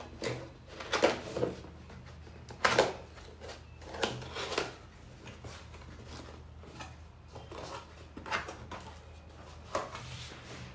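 Corrugated cardboard laptop box being handled, lifted and its flaps opened: irregular scrapes, rustles and knocks of cardboard, a few of them sharper, the loudest about one and three seconds in.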